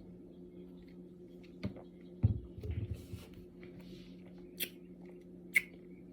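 Quiet mouth and handling sounds of someone drinking soda: a few sharp clicks and a short low gulping sound about two seconds in, over a steady low hum.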